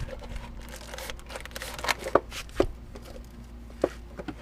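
Plastic zip ties being handled and pulled tight: rustling with a few sharp clicks, the loudest about two seconds in and another near the end.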